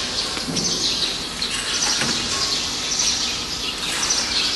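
Steady background of high-pitched chirping and hiss, with bright patches every second or so, and no distinct machine sound standing out.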